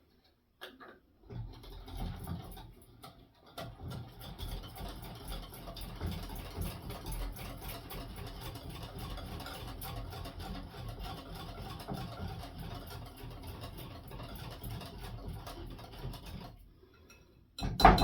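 Wire whisk beating a spice marinade in a bowl: fast, steady, rhythmic scraping and clicking that starts about a second in and stops shortly before the end.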